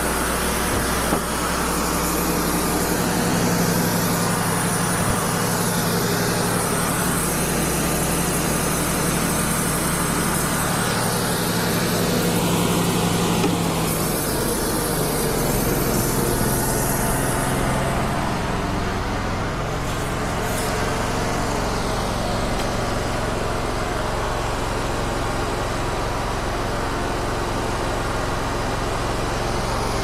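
Wood-Mizer LT35 bandsaw sawmill running steadily, its dull band blade sawing a kiln-dried red oak board on the resaw attachment. About two-thirds of the way through, the high hiss of the cut fades out and the engine runs on. The blade is dull and running smoking hot.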